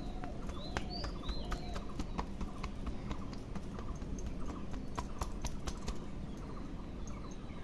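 Hair cracking during a head massage: a quick, irregular run of sharp clicks and snaps as strands of hair are pulled and twisted.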